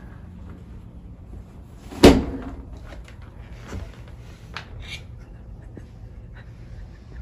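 A hotel room door's handle and latch clunk once, loudly, about two seconds in, followed by faint clicks and rustling.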